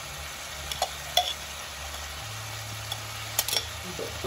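Tofu frying in a nonstick wok on a portable gas stove: a faint steady sizzle over a low hum. A few sharp clicks come as a knife scrapes fried chili sauce from a glass jar into the pan, about a second in and again after three seconds.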